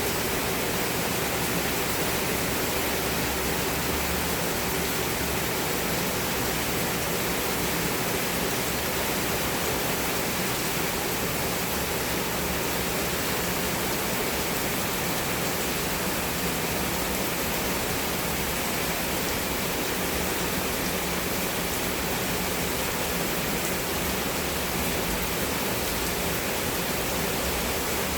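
Heavy rain pouring down steadily on a garden and its plants, an even hiss with no individual drops standing out.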